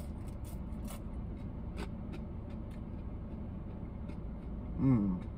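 Steady low hum inside a car cabin while someone eats French fries. There are faint clicks of chewing and handling the paper fry carton, and a short falling voice sound, like a satisfied 'mm', near the end.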